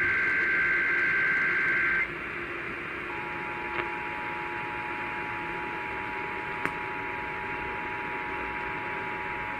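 Emergency Alert System test received over AM radio: a shrill two-pitch digital data burst (the SAME header) cuts off about 2 s in, then after a second of static the two-tone EAS attention signal starts, a steady dissonant chord of two tones held to the end. Radio hiss runs underneath.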